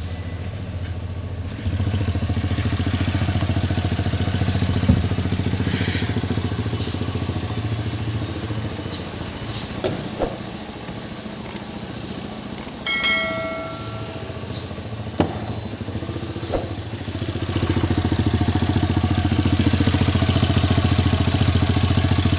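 Tata Nano's two-cylinder petrol engine running steadily on a trial drive, with no misfire after its spark plugs were cleaned and re-gapped; it grows louder about three quarters of the way through. A few light clicks and a brief pitched tone about halfway through.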